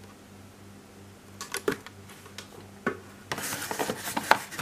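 Cardboard shipping case and boxed diecast model being handled: a few sharp knocks and clicks, then from about three seconds in a stretch of cardboard rustling and scraping.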